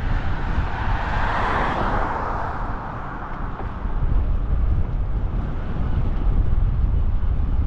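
Wind buffeting a helmet-mounted action camera on a moving bicycle, a steady gusty rumble. A car passing on the adjacent road swells up about a second in and fades away by about three seconds.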